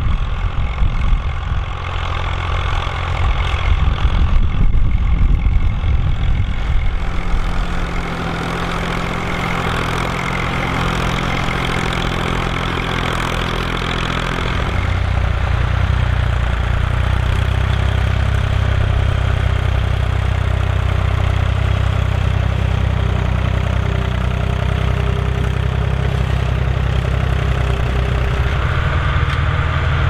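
Diesel tractor engines running steadily under load as they pull ploughs through soil, in clips one after another: a Leyland, then a David Brown Selectamatic, then a John Deere. The engine note shifts twice, about a quarter of the way in and again about halfway, settling into a lower, even drone for the second half.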